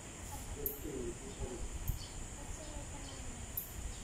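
Outdoor background: a steady high-pitched insect drone, with faint low wavering calls underneath.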